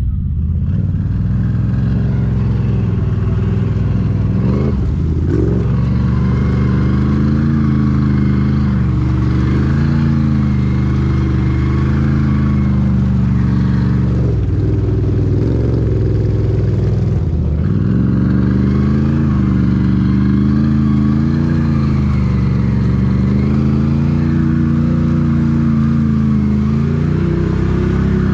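ATV engine running under throttle, its revs rising and falling every couple of seconds with short let-offs.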